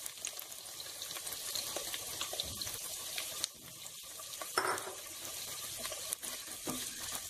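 Freshly added chopped onions sizzling in hot oil in a pot, a steady crackling hiss, with a few knocks and scrapes of a wooden spatula.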